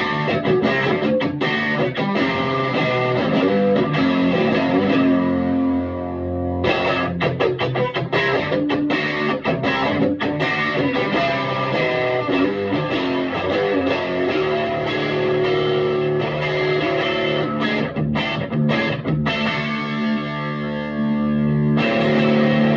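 Electric guitar on its single-coil Scala pickup, played through the Vintage Sound Amp's plexi channel: a run of single notes and chords with a short break about six seconds in, ending on ringing chords.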